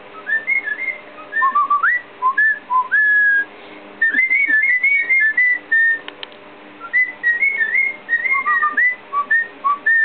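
Cockatiel whistling a tune it has learned from people, in clear single notes that step and glide up and down in quick runs. It whistles three phrases, with short pauses about three and a half and six and a half seconds in.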